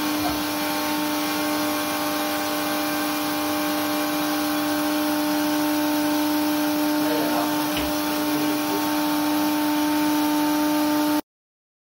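Plasmatron re-entry test facility running: a loud, steady machine hum with one strong low tone and several fainter ones over a constant hiss.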